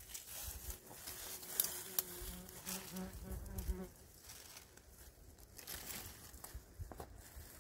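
An insect buzzing briefly: a steady, faint hum lasting about two seconds, starting a couple of seconds in. Faint rustling and a few light clicks sit around it.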